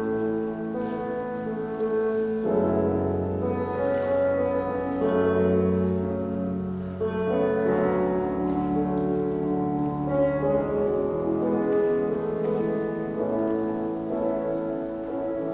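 Slow instrumental music: sustained chords that change every second or two.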